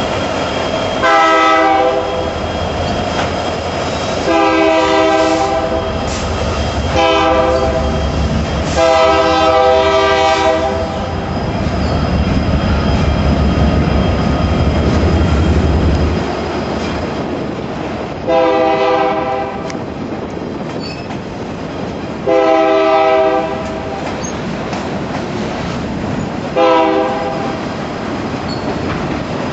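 Union Pacific freight train's lead-locomotive air horn blowing a string of chimed blasts for grade crossings: four in the first ten seconds, then three more a few seconds apart, the last one short. Under it, the diesel locomotives rumble past for the first half, giving way to the lighter rolling clatter of freight car wheels.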